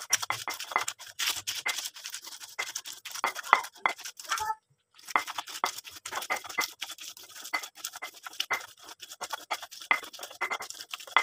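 Stone pestle grinding and scraping a wet spice paste of chilli, shallot, garlic, turmeric and ginger against a flat stone mortar (cobek), in quick, repeated scraping strokes. The strokes stop briefly about halfway through.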